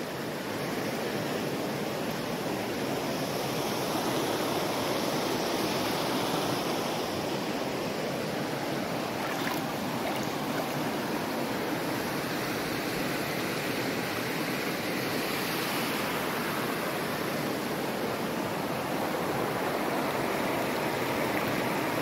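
A shallow river rushing steadily over rocks and riffles.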